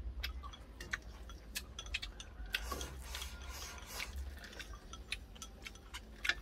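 Chopsticks and dishes giving scattered light clicks and taps during a meal, with a short rustle about two and a half seconds in.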